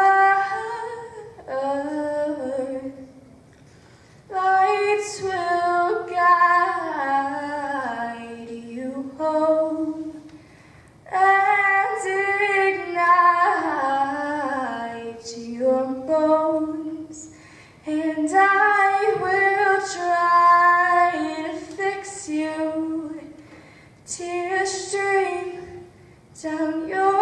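A girl singing solo without accompaniment, holding and gliding through long notes in phrases separated by short pauses for breath.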